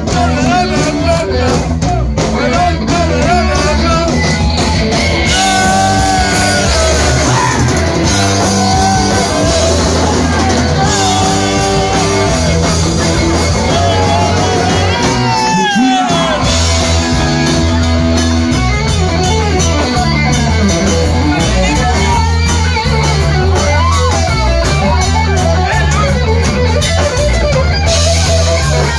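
Live rock band playing loud: guitar, bass and drums with a singer. The low end drops out briefly about halfway through.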